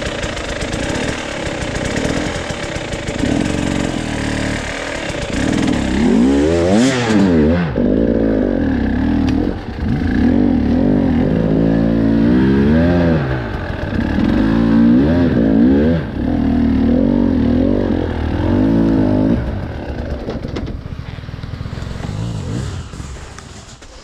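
Dirt bike engine running, then revved hard in repeated surges from about six seconds in, its pitch climbing and dropping again and again, easing off near the end.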